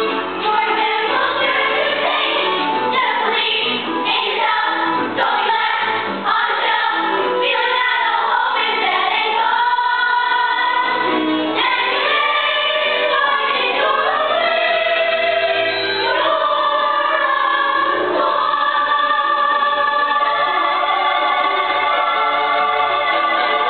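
A cast of many voices singing a musical-theatre number together with instrumental accompaniment, moving into long held notes in the last third.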